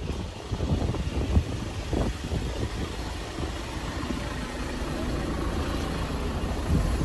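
Vehicle engine and road noise, a low steady rumble heard from inside a moving vehicle, with a few brief knocks in the first two seconds.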